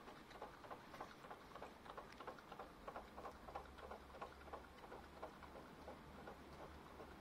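A dog lapping water from a small plastic tray: a faint, quick, regular run of wet laps, about three or four a second.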